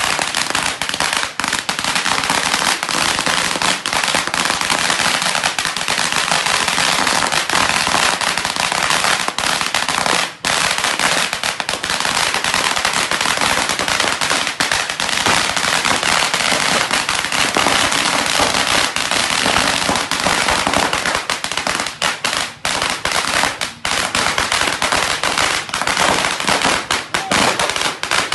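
A long string of firecrackers going off in a rapid, continuous crackle of bangs, with a short break about ten seconds in and more gaps near the end.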